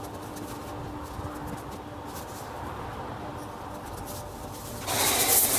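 A steady low hum under a faint background, then about five seconds in a pressure-washer jet cuts in with a sudden loud spray hiss.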